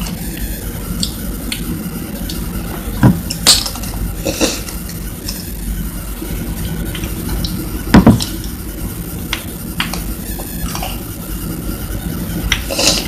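Metal spoon clinking and tapping against a small ceramic cup as it is dipped and scraped, with scattered light clicks and a few louder knocks, about three seconds in and again about eight seconds in, over steady background noise.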